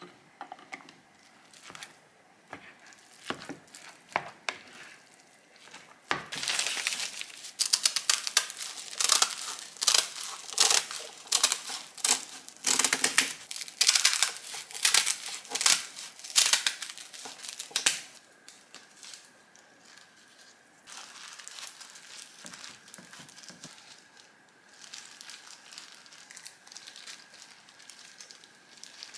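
A plastic spatula clicking softly as it mixes seasoned rice in a bowl. After about six seconds, kitchen scissors cut through a stack of crisp dried laver (gim) sheets with loud dense crackling snips for about twelve seconds. Then come quieter rustles of gloved hands handling the fillings, over a faint steady high hum.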